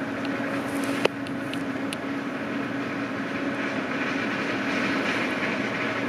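Steady engine drone of a combine harvesting corn in a nearby field, with a constant low hum. One sharp click about a second in.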